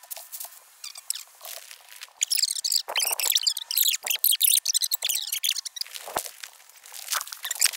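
Footsteps crunching and rustling through dry fallen leaves, busiest in the middle few seconds.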